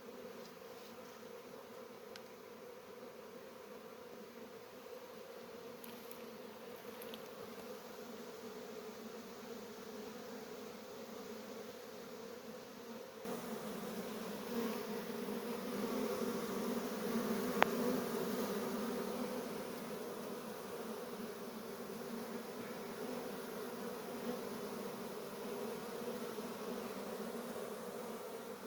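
Honeybees buzzing in a steady hum. It gets louder a little before halfway, and there is one sharp click soon after.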